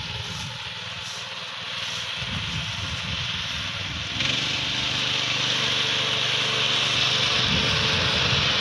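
Petrol-engined walk-behind fodder reaper running while it cuts grass, a steady engine note under a hissing noise. About four seconds in it gets louder and the engine's steady hum comes through more clearly.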